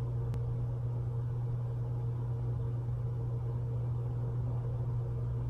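Steady low hum with a faint even hiss, with one faint click just after the start: room tone, with no brush or palette sounds standing out.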